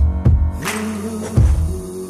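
Film soundtrack music: several deep drum hits under a sustained, held melody.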